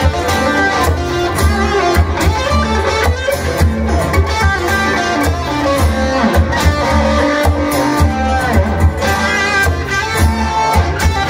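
Live rock band playing an instrumental passage: electric guitar over a heavy bass line and drums.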